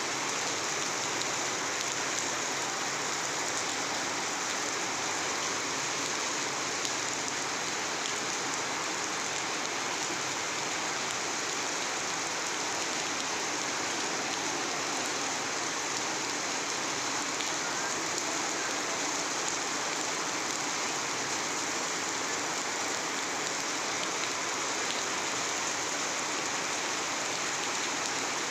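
Steady rain falling, an even hiss with scattered fine drop ticks.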